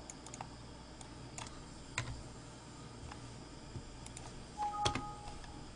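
Faint, scattered light clicks, a few seconds apart, with a short electronic beep of two steady notes about five seconds in.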